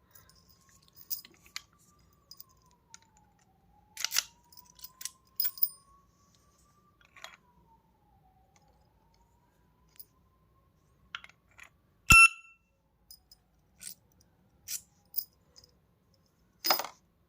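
Scattered metallic clicks and taps from handling an alarm padlock, the loudest a sharp ringing metal clink about twelve seconds in and a duller knock near the end. A faint tone slowly rises and falls underneath.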